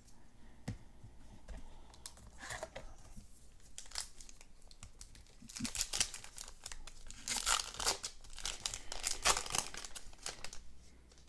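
Crinkling and tearing of a plastic trading-card pack wrapper, with light handling clicks. The rustling comes in bursts and is loudest in the second half.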